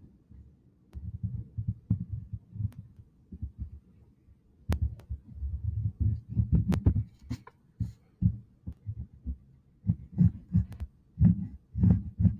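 Crayon being rubbed back and forth on paper over a hard tabletop, heard as quick irregular low thuds of the strokes, several a second, coming in bursts that grow busier from about the middle on.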